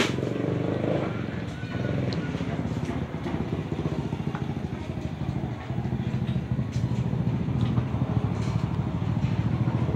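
A vehicle engine idling steadily with a rapid low pulsing, a little louder in the second half.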